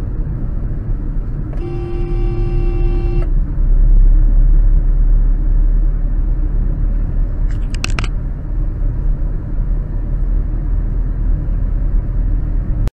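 Steady low road and engine rumble heard from a vehicle on a highway. A vehicle horn sounds for about a second and a half near the start, and a short, higher toot comes about eight seconds in. The sound cuts off suddenly near the end.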